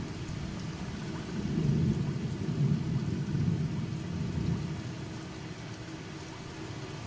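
Steady rain with a low, rolling rumble of thunder that swells about a second and a half in and eases toward the end.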